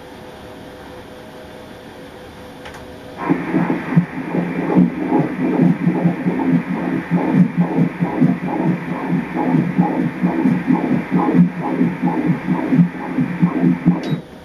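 Fetal heartbeat played through the ultrasound machine's Doppler speaker: fast, even, whooshing pulses. They start about three seconds in and cut off suddenly near the end.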